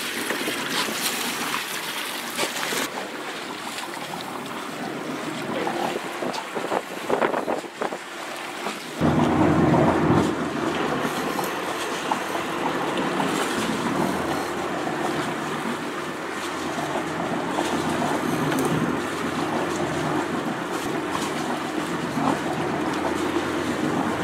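A hooked fish splashing at the surface beside a boat, with wind noise on the microphone and a few sharp splashes. About nine seconds in the sound changes abruptly to a boat's engine running steadily under wind and sea noise.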